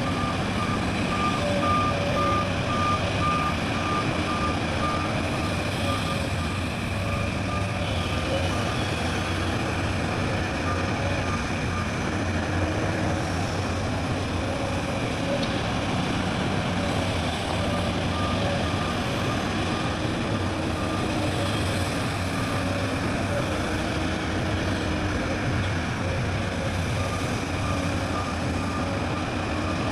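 Diesel engine of heavy machinery running steadily under a repeating reversing alarm. The beeping pauses for several seconds in the middle and then resumes.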